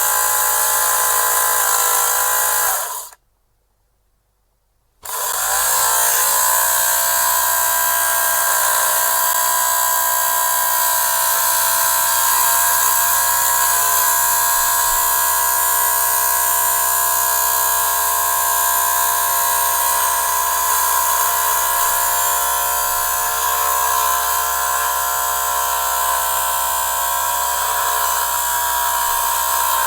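Electric lint remover (fabric shaver) motor buzzing steadily with a high whine. It cuts off about three seconds in, is silent for about two seconds, then starts again, its pitch rising as it spins up before settling steady.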